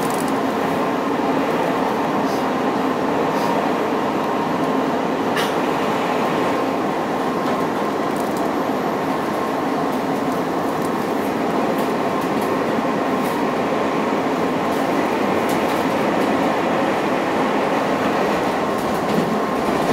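Steady running noise of an electric commuter train heard from inside the carriage as it travels at speed: an even rumble of wheels on the rails with a faint steady hum and a few light clicks over rail joints and points.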